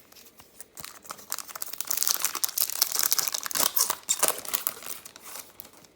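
A trading-card pack wrapper being torn open and crinkled by hand, a crackly rustling that builds up about a second and a half in and dies down near the end.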